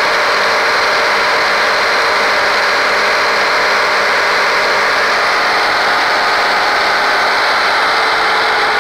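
Versatile 875 tractor's Cummins diesel engine running steadily at close range, with its engine bay open.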